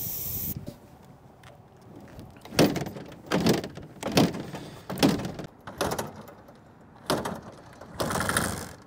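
Kickstarter of a 1978 Kawasaki KZ400 being kicked over repeatedly: seven strokes, roughly one a second, as the parallel-twin engine is turned over in a first attempt to start it. The last stroke runs longer than the others.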